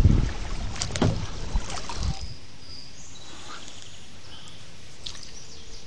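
Kayak paddling, with wind buffeting the microphone and paddle strokes knocking and splashing. About two seconds in it drops to a quieter stretch of faint water sounds as the paddle works in still water among reeds.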